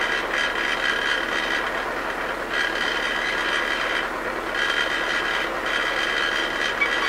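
MTZ-80 tractor's four-cylinder diesel engine idling steadily, with a high whine that comes and goes every second or two.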